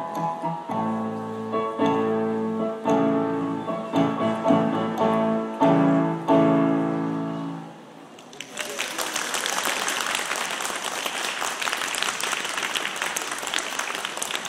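Grand piano played six-hands, closing on loud chords whose last one rings out and fades. About eight seconds in, applause starts and keeps going.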